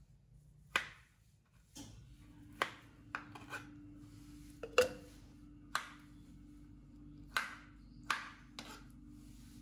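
A kitchen knife cutting a peeled kiwi into pieces on a plastic cutting board: about ten sharp taps of the blade on the board at uneven intervals. A faint steady hum comes in about two seconds in.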